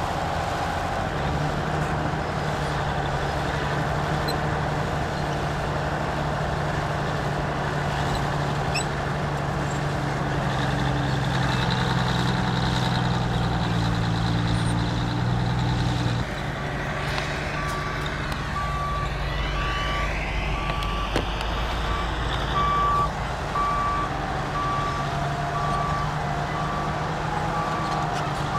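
Diesel engine of heavy earthmoving machinery running, its note dropping about halfway through. Soon after, a reversing alarm starts beeping steadily and keeps on.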